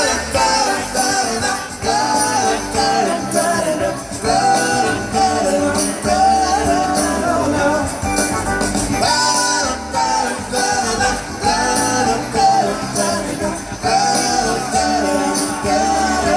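Live rock band performing on an open-air festival stage, heard from within the audience. A melodic lead line comes in short, repeated phrases over the band.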